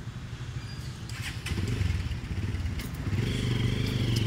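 Motorcycle engine running, getting louder about three seconds in as it comes closer.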